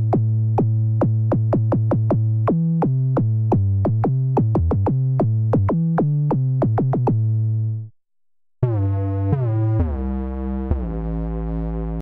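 808-style synth bass from a software sound library, played as low notes on a keyboard: a sustained bass tone with sharp clicks in a quick rhythm, its pitch stepping between notes. It stops about eight seconds in, and after a short gap a different, lower bass patch starts, its notes gliding downward in pitch.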